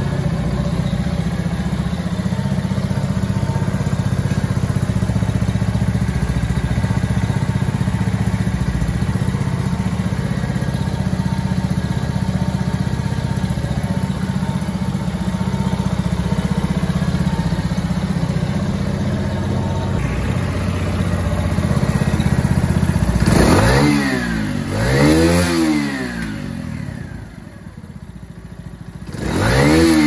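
Gilera GX1 Sport mini bike engine idling steadily, then revved in three short throttle blips near the end, each rising and falling in pitch, two close together and one last one.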